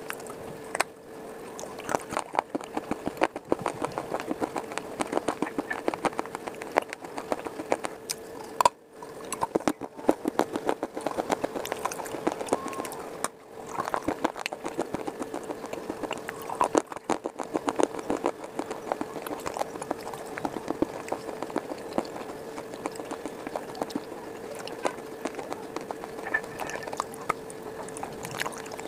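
Close-miked crunching and chewing of hard baked clay, a dense, irregular run of crisp crackles and snaps from the mouth, with a faint steady hum underneath.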